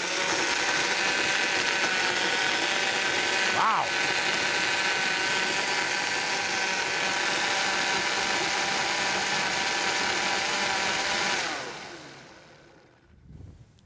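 Waring MegaMix 1.5-horsepower commercial blender running loud and steady as it blends frozen strawberries with juice into a daiquiri. About eleven seconds in the motor cuts off and winds down, its pitch sliding lower as it fades.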